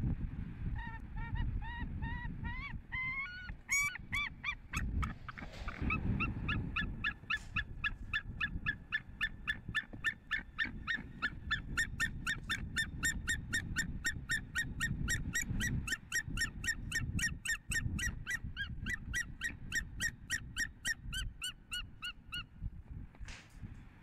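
White-tailed eagles calling while mating on the nest: a long run of short, high, repeated call notes, about four a second, quickening a few seconds in and stopping shortly before the end. A low rumbling noise runs underneath.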